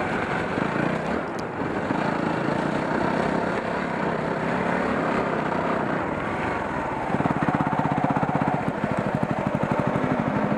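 Yamaha WR250R's single-cylinder four-stroke engine running at low speed on a dirt trail. From about seven seconds in, its separate firing beats stand out as an even pulse.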